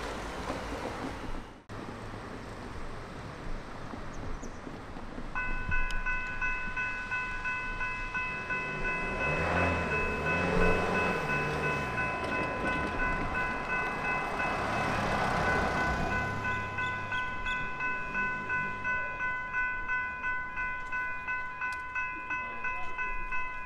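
Level-crossing warning bell starts ringing about five seconds in, a steady repeating ding with several fixed tones, signalling that the crossing has activated for an approaching train. A road vehicle drives past while it rings.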